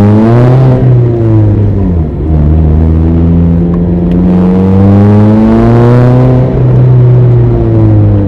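Mazda ND MX-5 Roadster's four-cylinder engine pulling uphill under load: the revs rise, drop back with a short dip about two seconds in, then climb steadily for several seconds before easing off near the end.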